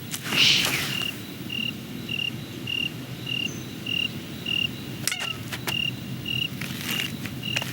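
Cricket chirping steadily, one short chirp about every half second, over a low murmur, with a brief hiss about half a second in and a few sharp clicks near the end.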